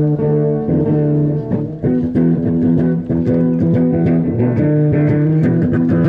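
Guitar music: picked notes and chords over sustained low bass notes, played steadily and loud.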